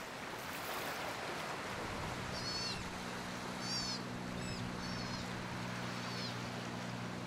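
Steady wash of ocean surf, with a short high call repeated several times from about two seconds in and a low steady hum coming in at the same point.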